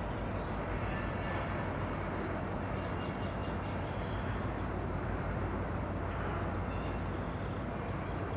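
CN freight train's boxcars rolling past, a steady rumble of steel wheels on the rails.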